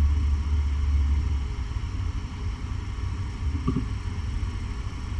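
Domestic cat purring: a steady low rumble, loudest in the first second and a half, then fainter.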